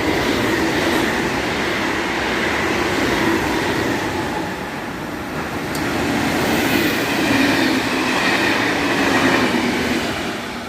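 A train running past on the rails close by, a steady rumble and rail noise that swells twice and eases off near the end.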